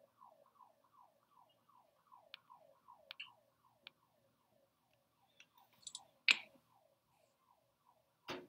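A faint siren in the background, its pitch gliding downward over and over, about three times a second. Scattered clicks sound over it, with two louder ones about six and eight seconds in.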